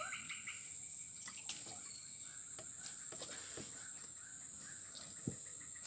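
Swamp ambience: a steady high insect drone with faint, scattered bird chirps and a few soft knocks.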